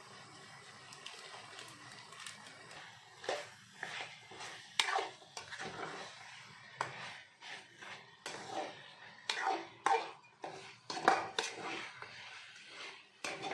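Metal spatula scraping and clinking against a metal cooking pan while stirring chicken pieces and masala powder, in irregular strokes that begin about three seconds in.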